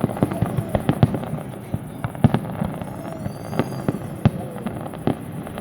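Fireworks display: rapid, irregular bangs and crackles from aerial shells bursting, over a steady rumble, with the sharpest reports about two and a quarter and four and a quarter seconds in.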